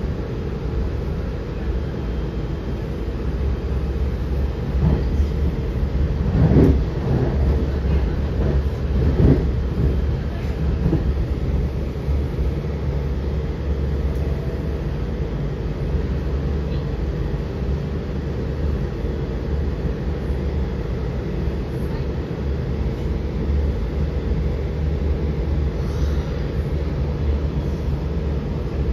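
Washington Metro Silver Line train running between stations, heard from inside the car: a steady low rumble with a motor hum, and a few louder clatters of the wheels about six and nine seconds in.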